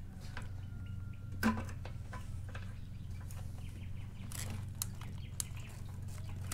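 Clicks and knocks from working the fuel line connector off a Royal Enfield Hunter 350's fuel tank and lifting the tank: one sharp click about a second and a half in, a few lighter ones later. A steady low hum runs underneath.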